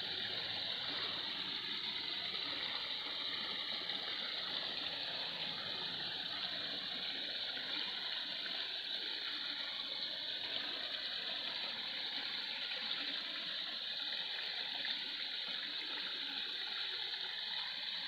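Small stream splashing and trickling steadily down a low cascade over rocks.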